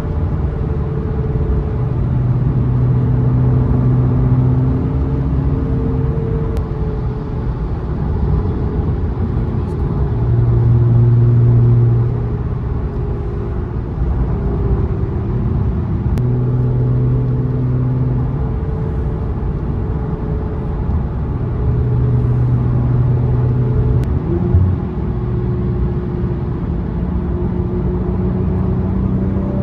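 Infiniti Q50 engine and road noise during a drive, the engine note holding steady in stretches, then climbing gradually in pitch over the last several seconds as the car speeds up.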